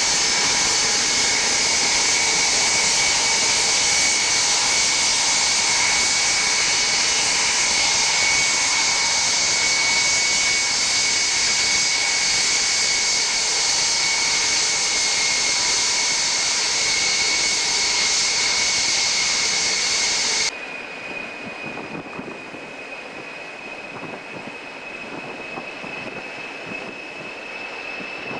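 Ilyushin Il-76T's four Soloviev D-30KP turbofans whining steadily as the freighter taxis close past and away, with several piercing steady tones over the jet roar. About two-thirds through, the sound cuts off suddenly to a quieter, more distant jet whine with one high steady tone.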